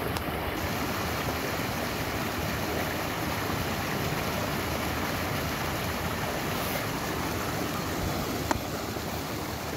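Steady rushing noise of a flowing creek with wind on the microphone, and one short click about eight and a half seconds in.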